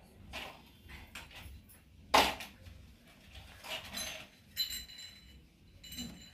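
A toddler's short breathy sounds and sips while drinking milk from a small steel cup, in a handful of brief bursts, the loudest about two seconds in.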